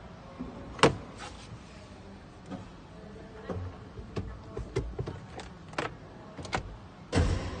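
Clicks and knocks of hands handling the plastic dashboard and open glove compartment of a Toyota car, a sharp loud one about a second in and a scattered string of lighter ones after, ending with a louder, longer thump near the end.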